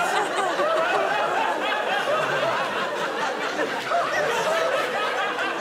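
Studio audience and panellists laughing, with several voices talking over one another.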